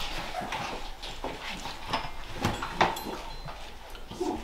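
Scattered light knocks and clicks, the loudest a pair about two and a half seconds in: brass band musicians handling their instruments and stands as they get ready to play.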